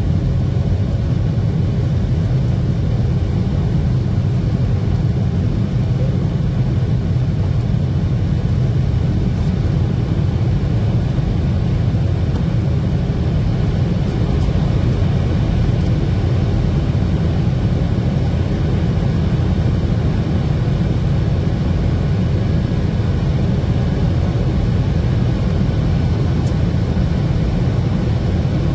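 Boeing 737-800 cabin noise heard from a window seat over the wing during climb-out after takeoff: a steady low rumble of the CFM56-7B jet engines and airflow, unchanging throughout.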